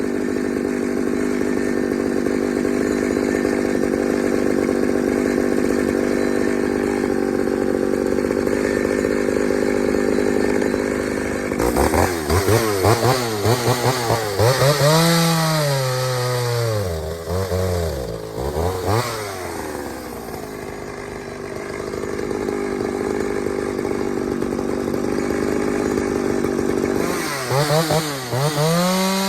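Pioneer 3270 two-stroke chainsaw running at high revs, then dropping off and blipped up and down several times before running up again, with another drop and blips near the end. The owner takes the way it runs for running lean, starved of fuel by a carburetor that he guesses came off a smaller saw.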